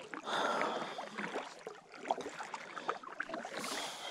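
Kayak paddle strokes through lake water, with water splashing and a few small clicks and knocks.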